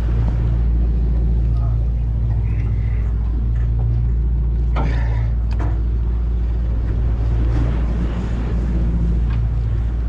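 Fishing party boat's engine running with a steady low hum. A couple of sharp clicks come about five seconds in.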